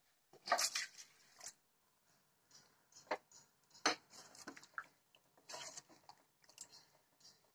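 Metal ladle stirring thick sambar in a stainless steel pot, with scattered short clicks and scrapes of the ladle against the pot.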